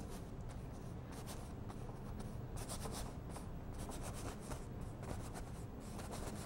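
Paintbrush stroking oil paint onto a stretched canvas: a run of short brushing strokes, over a low steady hum.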